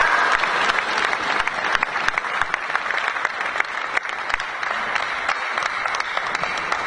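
Arena crowd applauding a point just won in a table tennis match: dense, steady clapping.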